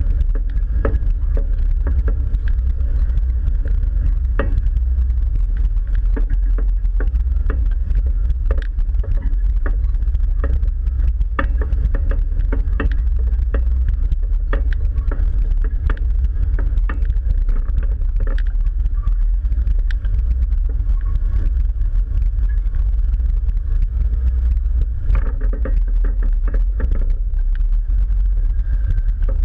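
Jeep engine running at low trail speed, a steady low rumble picked up through the hood-mounted camera, with frequent short knocks and rattles as the vehicle crawls over rocks and leaves.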